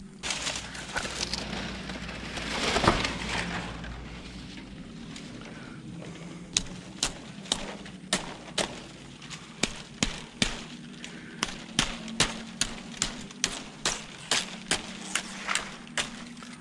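A blade chopping at a green palmetto stalk: rustling and one loud crack early on, then steady sharp strikes about two to three a second from about six seconds in.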